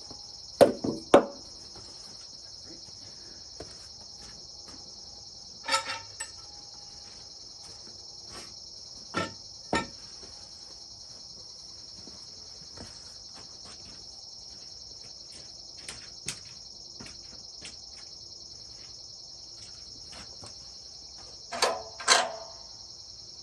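A steady, high insect chorus of crickets or katydids, broken by a few short knocks and clunks, mostly in pairs, about a second in, near the middle, and near the end.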